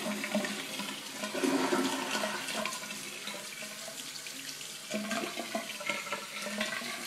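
Toilet flushing: a rush of water, loudest about a second and a half in, then gradually easing.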